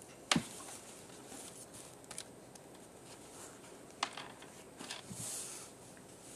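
Paper towels being handled and folded, a faint papery rustle with two short sharp taps, one just after the start and one about four seconds in.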